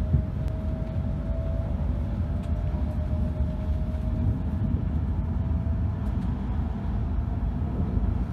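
Running noise inside a Tohoku Shinkansen train accelerating away from a station: a steady low rumble, with a faint whine that rises slightly in pitch and fades after about six seconds.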